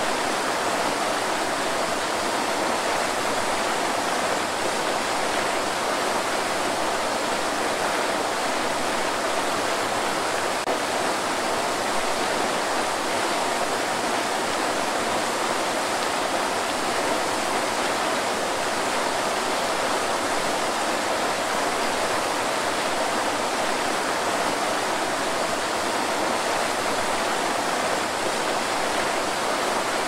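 Waterfall pouring into a pool: a steady, even rush of falling water that doesn't change.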